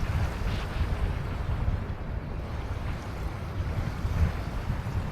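Wind buffeting the microphone as a gusty low rumble, over a steady hiss of river waves lapping.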